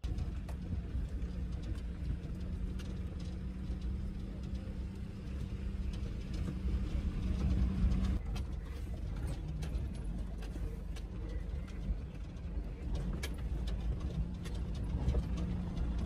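A car driving slowly over a rough dirt road: a low engine rumble with a steady hum, and many knocks and rattles as it goes over stones and ruts.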